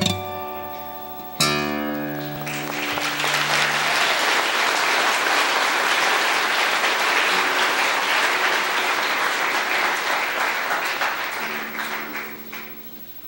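Fingerpicked acoustic guitar ending a piece with two ringing chords, the second about a second and a half in, then audience applause for about ten seconds that dies away near the end.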